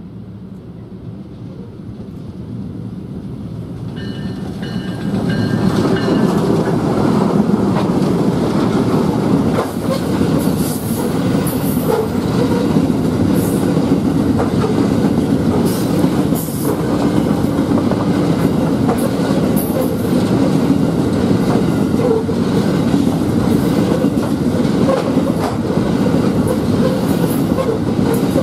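Narrow-gauge diesel-hauled loaded grain train: the locomotive draws near, its sound growing louder, and passes about five seconds in. After it, a long string of loaded grain hopper wagons rolls by with a steady heavy wheel rumble and the clickety-clack of wheels over rail joints.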